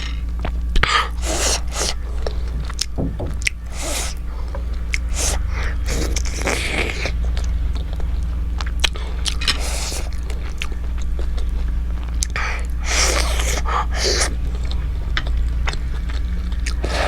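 Close-miked chewing and mouth sounds of someone eating momo dumplings: repeated wet smacks and clicks, with a few longer breathy or slurping sounds, over a steady low hum.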